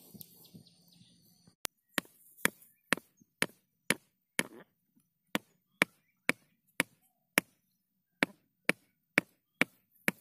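A stone striking the head of a wooden tether stake, driving it into the ground: sharp knocks about two a second, starting a little under two seconds in, with a short pause past the middle.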